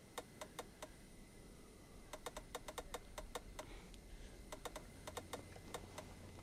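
Quiet, irregular small clicks: a few at the start, then quick clusters through the middle and toward the end.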